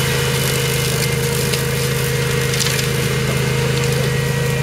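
OREC Rabbit Mower RM951 ride-on brush mower running steadily at full throttle as it climbs a steep slope, its blades cutting through long grass and brush, with a couple of brief cracks of woody stems.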